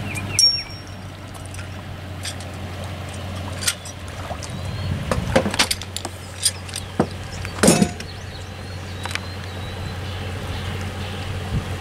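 Scattered knocks and clunks on a bass boat's deck as a pedestal seat is fitted onto its post, the loudest a heavier thump about two-thirds of the way through, over a steady low hum.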